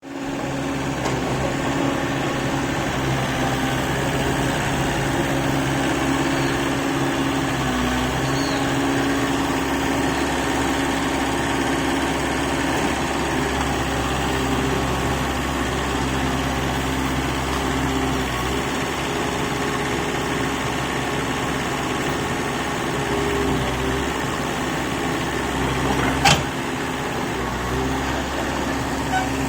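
Excavator's diesel engine running steadily, with a few small shifts in engine speed. A single sharp knock comes near the end.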